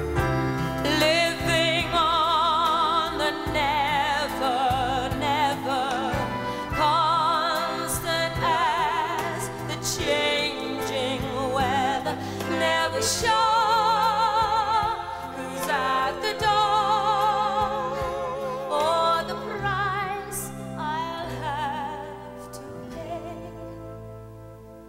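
Woman singing a show song solo with wide vibrato on long held notes, over instrumental accompaniment; the music grows quieter over the last few seconds.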